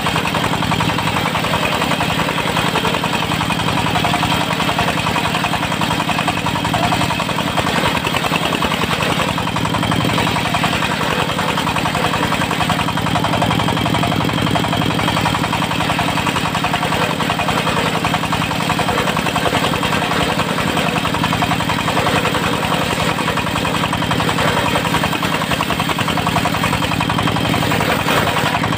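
Diesel engine of a locally built mobile circular sawmill running steadily at an even speed.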